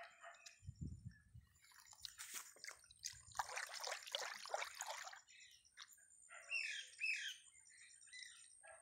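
A hand swishing and splashing liquid in a bucket in uneven bursts, the longest and loudest about halfway through.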